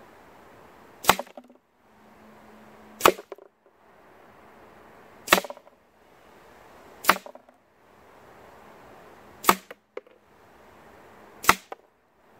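Edgun Leshiy 2 .22 semi-automatic pre-charged air rifle firing six shots about two seconds apart, each a sharp crack with a short rattle after it, as the self-indexing action feeds the next pellet.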